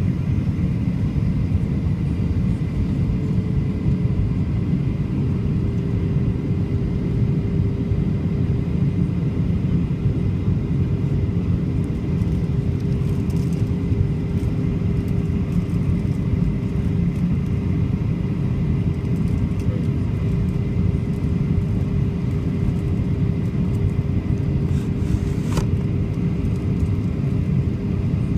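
Cabin noise inside a Boeing 737-800 in flight, heard from a seat over the wing: a steady roar of airflow and the CFM56 turbofan engines. A steady hum runs under it and drops slightly in pitch a few seconds in.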